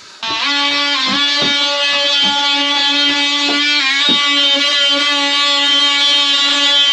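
Cordless oscillating multi-tool running continuously as it cuts into an old oak boat frame: a loud, steady buzzing whine that dips briefly in pitch as the blade bites, about one and four seconds in.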